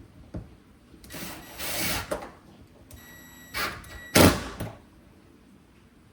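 Handling and knocking noises from fitting a lock to a window: a rush of noise, a short whine, then a sharp knock about four seconds in, the loudest sound.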